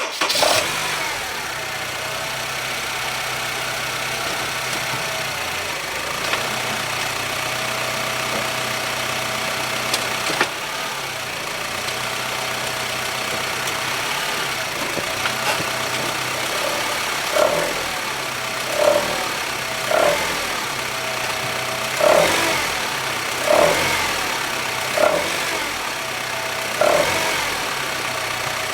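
Honda Civic FD's 1.8-litre R18 four-cylinder engine catching at the start, then idling steadily with a thin steady tone. Past the middle it is blipped repeatedly in short revs, about one every second and a half. The noise is the sign of worn belt tensioners and engine mounts, with the handbrake engaged to bring it out.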